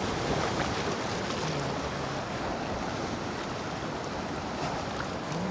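Sea waves washing against shore rocks: a steady, even rush of surf, with wind buffeting the microphone.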